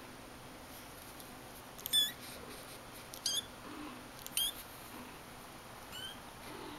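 Persian kitten, four to five weeks old, giving short high-pitched mews with a wavering pitch: a loud one about two seconds in, two more a second or so apart, and a fainter one near the end.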